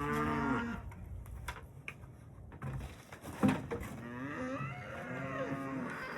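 Cattle mooing: one call right at the start, then a longer call that wavers in pitch from about four seconds in. A single sharp knock sounds about three and a half seconds in.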